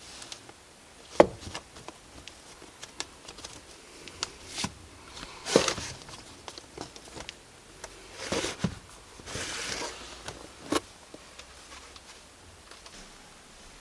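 Things being handled at a wooden record cabinet: scattered knocks and clicks, the sharpest about a second in, with short rustles of LP record sleeves being shifted about halfway through and again between eight and ten seconds in.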